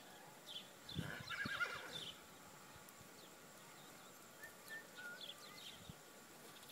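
A horse whinnies once, about a second in, a quavering call lasting about a second.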